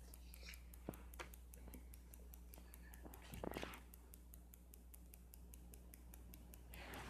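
Near silence: a steady low electrical hum with a few faint clicks and a soft breathy rustle midway.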